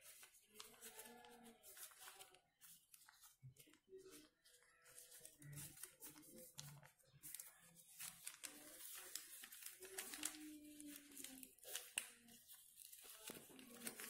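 Faint rustling and crinkling of a sheet of white paper as hands fold and crease it into an origami flapping bird, in many short crackles that grow busier in the second half.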